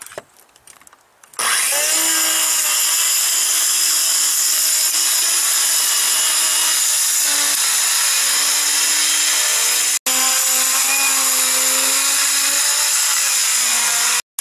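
A Skilsaw 7-1/4-inch circular saw with a thick-toothed BigBlue Demolition carbide blade starts about a second and a half in. It runs loud and steady, cutting through asphalt shingles, tar paper and plywood roof decking, and its pitch wavers as the blade loads. The blade depth is set not deep enough to get fully through the warped deck.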